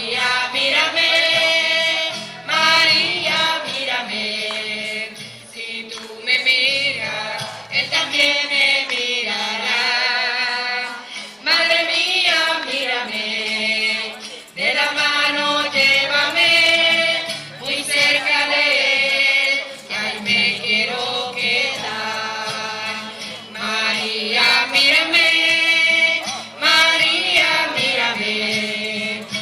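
A group singing a religious hymn in phrases, women's voices prominent, with guitar accompaniment.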